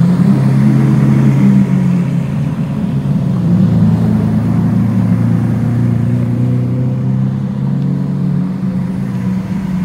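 Lamborghini Aventador V12 engines running at low speed as a line of Aventadors crawls past, a loud, steady low drone that shifts slightly in pitch about three to four seconds in.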